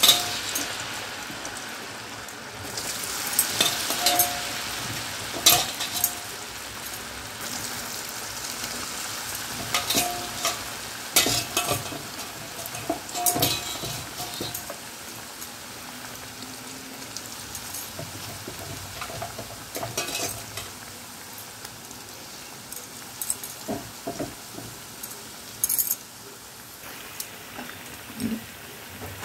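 Potato sticks deep-frying in hot oil in a metal kadai: a steady sizzle, loudest in the first couple of seconds. About a dozen sharp clinks of a metal spoon against the pan cut through it.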